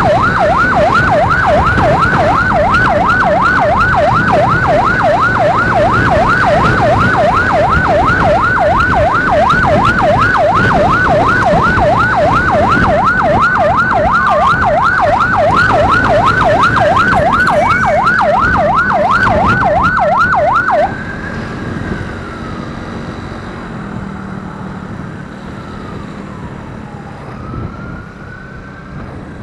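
Emergency siren in fast yelp mode, sweeping up and down about three times a second, loud over motorcycle engine and road noise. About two-thirds of the way through the yelp cuts off, leaving a fainter, slower wail that falls in pitch a couple of times.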